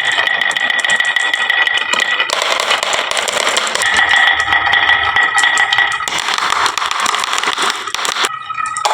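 Many glass marbles rattling and clattering as they roll down a wooden marble run slope, a dense stream of small clicks, briefly cut off near the end.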